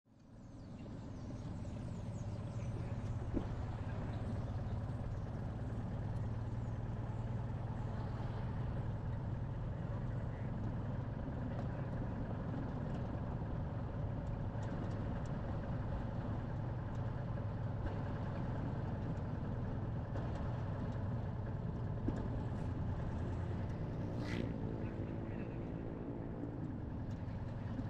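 A Citroën car being driven: a steady low engine drone with road noise, heard from a camera mounted on the car. It fades in over the first second, and a brief higher hum joins it near the end.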